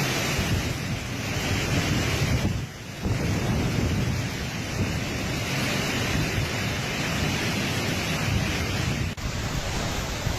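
Strong cyclone wind blowing and buffeting the microphone, a dense steady rush of noise with heavy low rumble. The sound dips briefly about three seconds in and again near the end.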